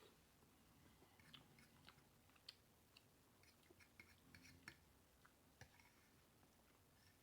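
Faint close-up eating sounds: chewing with a string of small, irregular wet mouth clicks and smacks.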